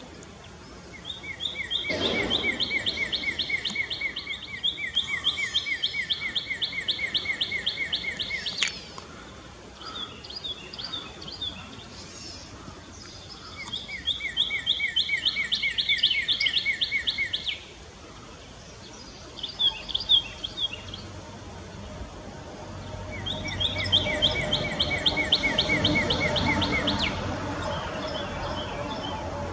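Bird calls outdoors: three long, rapid, buzzy trills, the first about seven seconds long and the other two shorter, with softer short chirps between them.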